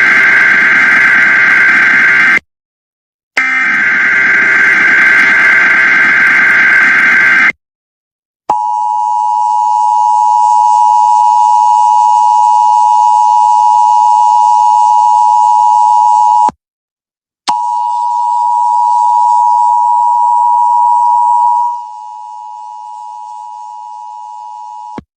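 Emergency Alert System tones: two raspy digital data bursts of the SAME header, then the steady two-tone EAS attention signal sounding twice for several seconds each with short silent gaps. The second attention tone drops sharply in volume near the end.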